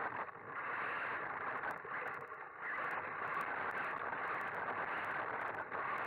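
Onboard sound of an RC off-road buggy driving over rough dirt and leaf litter: a steady rushing, scraping noise of tyres, drivetrain and air over the camera. It dips briefly twice, about a third of a second in and around two seconds in, and short high ticks are scattered through it.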